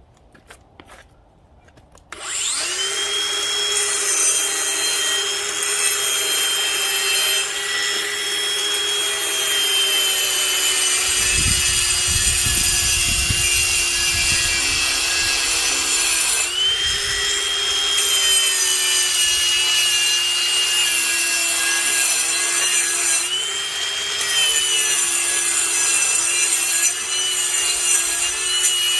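Ryobi cordless brushless angle grinder with a 4.5-inch diamond blade starting about two seconds in and grinding concrete: a steady high motor whine over a loud grinding hiss. The motor pitch rises briefly twice and settles back as the load eases and returns.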